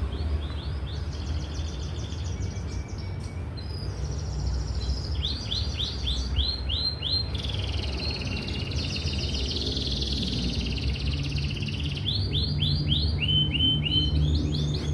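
Domestic canary singing a continuous song of fast trills, each phrase a quick run of the same note repeated, with the pitch and speed changing from phrase to phrase. A steady low hum sits underneath.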